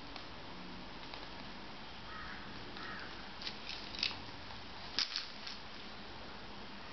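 Wicker basket creaking and crackling in a few sharp clicks as a baby shifts her weight and stands up in it, over quiet room tone.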